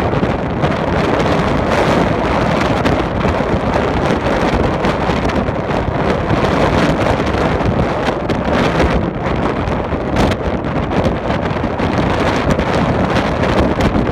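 Strong wind blowing over the microphone: a loud, steady rush of noise without a break.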